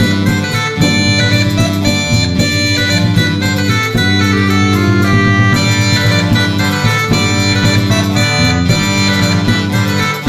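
Background music led by a plucked guitar with a steady rhythm of notes.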